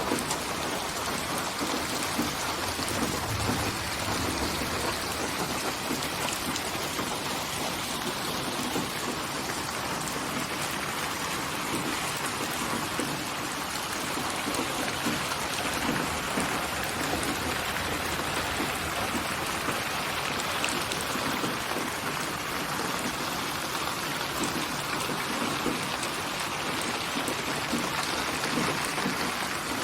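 Steady rain falling, an even hiss of raindrops.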